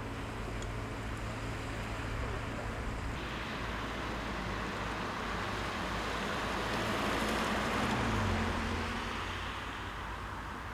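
A steady hiss of noise with a low hum from a car at night on a rain-soaked road. It swells for a couple of seconds past the middle, with the engine tone rising slightly.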